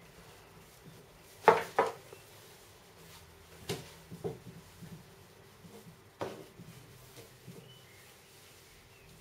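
Scattered sharp knocks and clatters of household objects being handled in a small room, a loud pair about a second and a half in, then a few lighter single knocks.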